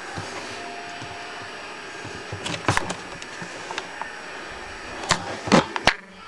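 Scattered knocks and clicks over a steady hiss, with a cluster of them near the end: movement and handling noises of someone walking through a room carrying a rifle.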